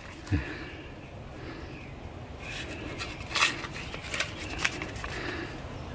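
Handling noises from the axe head and wood: a low knock about a third of a second in, then faint scraping and a few light clicks.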